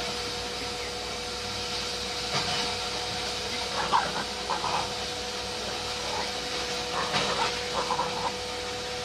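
Dog panting while it chases a rooster, over a steady background hiss, with a few short animal cries about four seconds in and again around seven to eight seconds in.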